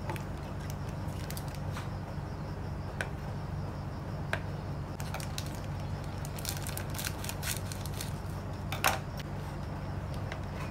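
Kitchen knife slicing food on a bamboo cutting board: scattered sharp taps and clicks as the blade meets the board, bunched together later on, with the loudest about nine seconds in. A steady low hum runs underneath.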